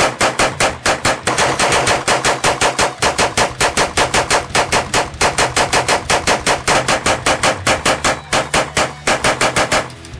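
Hand-cranked eight-barrel Tippmann Armory 9mm Gatling gun firing a fast, even string of shots as the crank is turned, about six shots a second. The firing stops about a second before the end.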